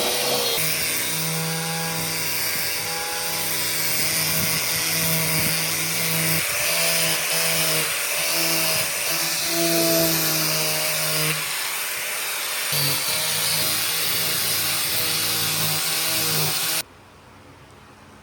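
Power tool running as it works wood, a steady hum with a wide hiss that shifts slightly in pitch. It cuts off suddenly near the end, leaving only faint background noise.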